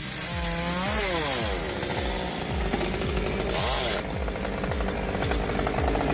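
Chainsaw running and cutting, revving up and dropping back about a second in, over background music with a steady beat.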